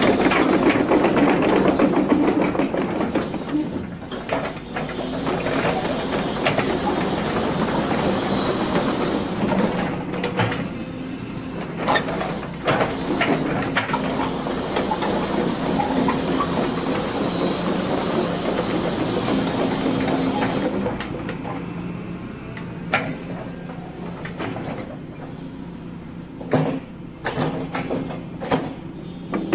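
Kobelco SK125SR-3 hydraulic excavator's diesel engine running under load with hydraulic whine as the machine turns on its steel tracks and works its boom and arm. The sound eases off in the second half, and sharp clanks and knocks come through near the end.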